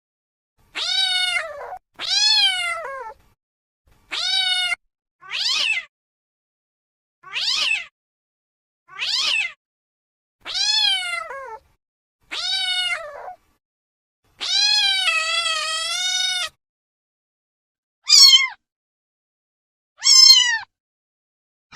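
Domestic cat meowing, about eleven separate meows with silence between them, each rising then falling in pitch. One long, wavering meow comes about two-thirds of the way through, and the last two are shorter and higher.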